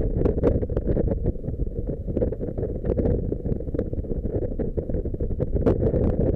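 Wind buffeting the microphone of a camera mounted on a moving motorcycle: a dense, steady low rumble with irregular crackles, the bike's running mixed into it.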